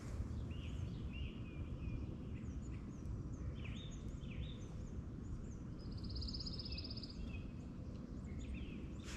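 Several small birds calling: short chirps throughout, and one fast, even trill a little past halfway, over a low steady rumble.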